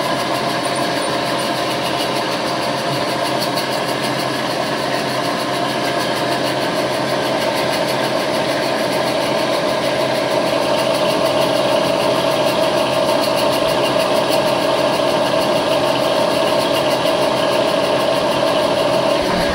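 Vertical milling machine spindle running steadily with an edge finder in the collet while the workpiece center is being located. The machine's hum grows a little louder about halfway through.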